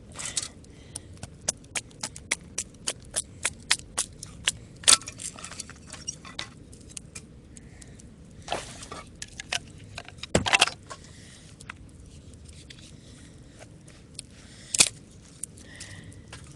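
A Mora knife being batoned through small firewood to split it thinner into kindling. There is a quick run of sharp wooden knocks, about two a second, for the first five seconds, then a few scattered louder knocks and scraping splits.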